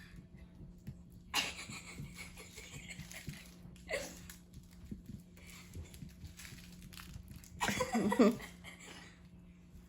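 Chihuahua puppy making breathy, wheezy sounds as it runs in circles, with a short pitched vocal sound from the dog about eight seconds in.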